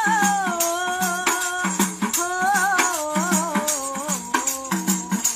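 Musical interlude in a Hindi film song played by street musicians: a wordless melody slides and wavers in pitch over a steady beat of shaken hand percussion, rattling and jingling several times a second.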